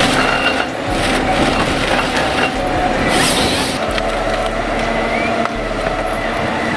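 Heavy machinery running steadily, with a short burst of hiss about three seconds in.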